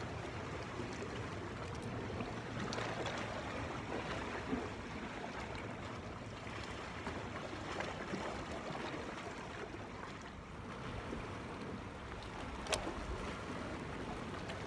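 Sea water washing steadily against shoreline rocks, with a sharp click near the end.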